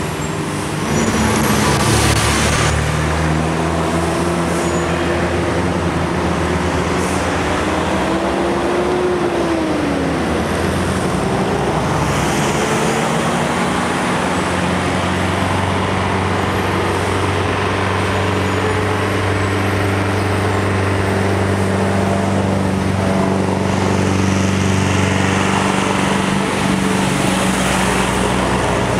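Road traffic: the engines of trucks, buses and cars run steadily. One engine's pitch rises and then falls away about nine seconds in.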